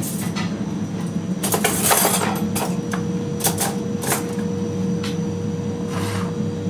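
Light clinks and taps of utensils against plates and bowls while a dish is plated, a quick cluster about a second and a half in, then a few single taps, over a steady low hum.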